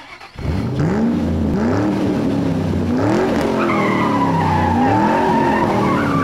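Car engine revving up and falling back again and again, with tyre squeal joining in from about three and a half seconds in.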